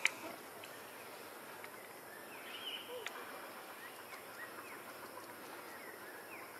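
Faint outdoor ambience with a sharp click at the very start, then a scatter of soft, short, high chirping calls, densest about two to three seconds in.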